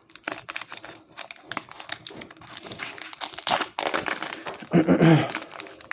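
Foil Pokémon booster pack wrapper being torn open and crinkled by hand, an irregular rustling crackle. About five seconds in a person gives a short hum, which is the loudest moment.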